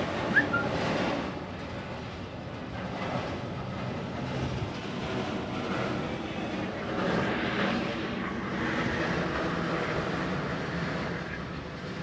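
Steady mechanical drone with a low hum, the sound of a large air-conditioner outdoor unit's fan running close by. A short sharp click about half a second in.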